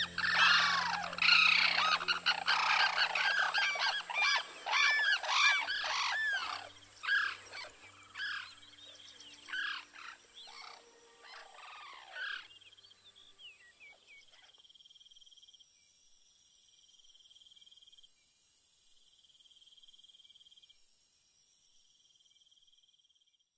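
Sarus cranes trumpeting in a unison call. Loud, arching calls come in quick succession, then thin out and fade, stopping about two-thirds of the way through. Only a faint steady hiss follows.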